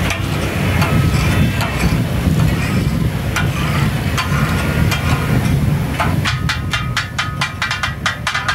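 Metal spatulas striking and chopping on a large iron griddle as katakat is cooked: scattered clacks, then from about six seconds in a fast run of ringing clangs, some seven a second. A steady low rumble runs underneath.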